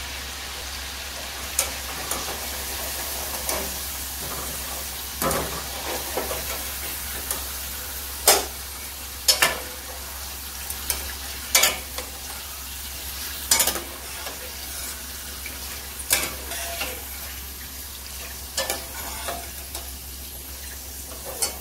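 Potato bites sizzling in hot oil in a steel kadhai while being deep-fried. A wire-mesh skimmer and a steel ladle clink and scrape against the pan every second or two as the fried pieces are lifted out.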